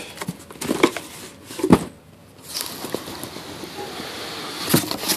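Cardboard retail box being handled and lifted out: a few knocks and bumps, the loudest about two seconds in, and a stretch of rustling and scraping in the middle.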